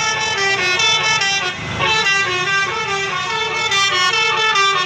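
Multi-tone 'telolet' (basuri) bus horn playing a melody of short notes, stepping from pitch to pitch several times a second.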